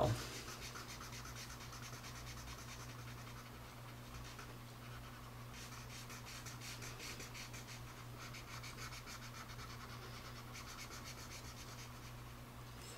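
Black felt-tip marker rubbing rapidly back and forth on paper as it colours in a solid shape: a faint, quick scratching that grows a little louder about halfway through and again near the end. A faint steady hum sits underneath.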